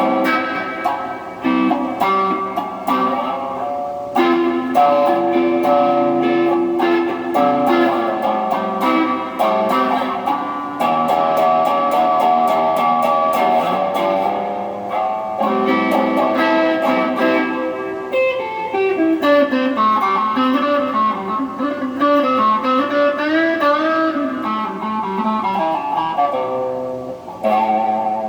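Electric guitar with its two pickups combined out of phase, played through an amplifier: picked chords and single-note lines, with gliding, bent notes in the second half.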